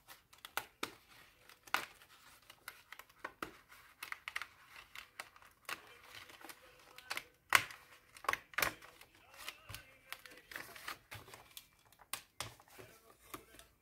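A sheet of printed paper cut-outs being handled: paper rustling and crinkling with many short clicks and taps, the sharpest a little past halfway.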